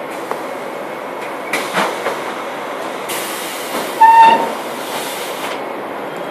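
Interior sound of a Škoda 14Tr17/6M trolleybus: a steady running noise, a few knocks about a second and a half in, then a hiss of about two and a half seconds that cuts off suddenly. A short high tone sounds over the hiss about four seconds in and is the loudest thing heard.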